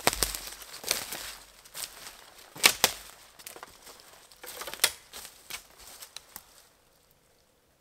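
Footsteps crunching through dry leaf litter and snapping twigs on a forest floor, an uneven series of crackles that fades as the walker moves away, dying out about seven seconds in.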